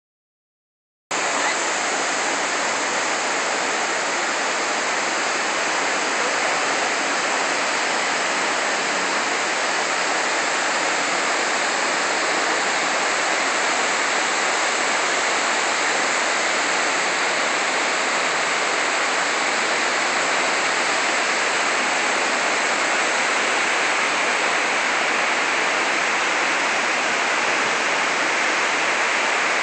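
The 9/11 Memorial reflecting pool's waterfall: sheets of water pouring down the pool's walls into the basin in a steady, even rush, cutting in about a second in.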